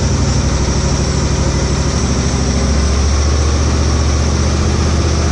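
Briggs & Stratton 24 hp V-twin engine of a Husqvarna GT52XLSi lawn tractor idling steadily without surging, its carburetor jets freshly fitted with new O-rings, which cured the hunting idle.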